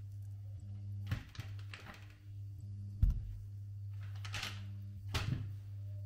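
Induction hob humming steadily under a pot, with several knocks and short scrapes as chunks of solid white cooking fat are dropped and pushed into the pot; the loudest knock comes about three seconds in.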